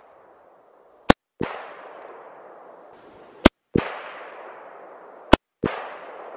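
Sig Sauer M400 AR-15 rifle firing three single shots about two seconds apart. Each shot is a sharp crack followed a moment later by a second report that echoes away over about a second.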